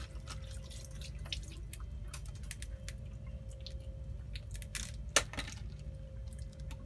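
Scattered small clicks and crackles of fingers picking apart a boiled balut (fertilized duck egg) and its shell over a metal bowl, with one sharper click about five seconds in, over a low steady hum.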